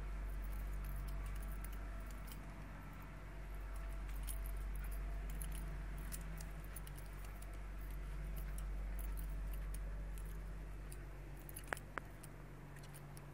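Steady low hum with light jingling clicks throughout, and two sharp clicks near the end.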